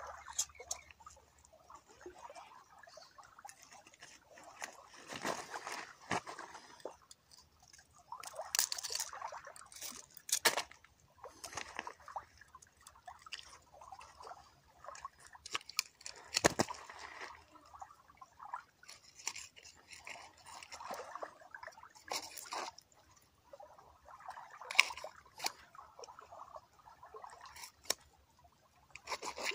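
Irregular clicks, scrapes and rustles on stony ground as a landed barramundi is handled with a metal lip-grip tool, with small waves lapping at the shore. The sharpest clicks come about a third, halfway and five-sixths of the way through.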